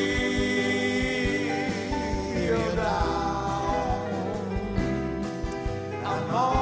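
A song playing: a singer holds long notes that glide between pitches over a band, with drum hits throughout.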